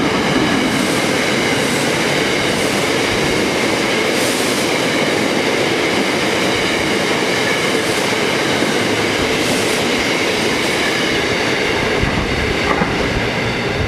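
Steel freight train's wagons rolling past at speed: a steady rumble of wheels on rail with regular clickety-clack and a faint high ringing from the wheels.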